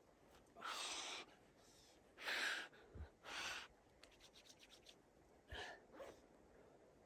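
Five short scraping crunches at uneven gaps, with the loudest a little over two seconds in.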